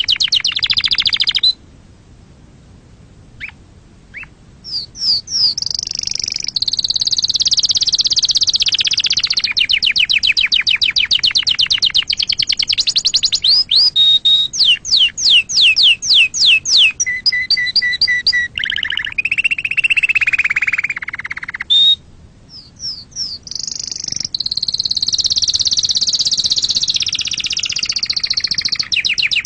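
Domestic canary singing a long song of rapid trills and rolling phrases. It pauses briefly about two seconds in and again about two-thirds of the way through.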